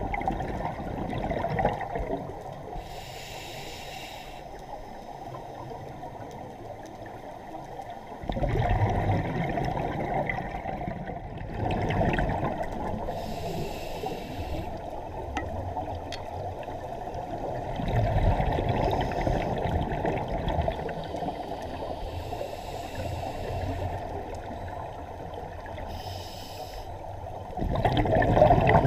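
Scuba regulator breathing heard underwater: short hissing inhalations alternating with low bubbling rushes of exhaled air, a few breaths several seconds apart, with a louder bubble rush near the end.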